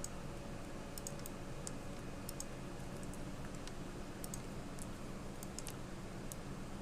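Scattered light clicks of a computer mouse and keyboard, about a dozen at irregular intervals, over a faint steady hum.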